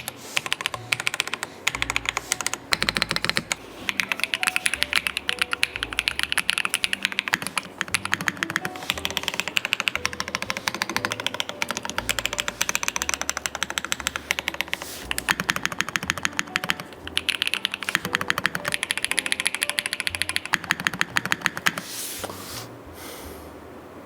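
Fast, continuous typing on a MASS80 keyboard: a dense run of key clacks that stops about two seconds before the end.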